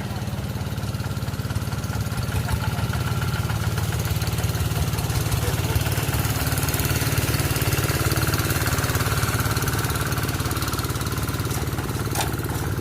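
Kubota RD85DI single-cylinder diesel engine of a Quick TL800 two-wheel hand tractor running steadily, getting a little louder through the middle, with a few short clicks near the end.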